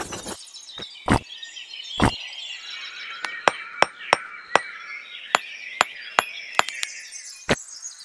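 About a dozen sharp, irregular taps and clinks of miniature clay bricks and a small trowel being worked into mortar, over a faint background of birds chirping.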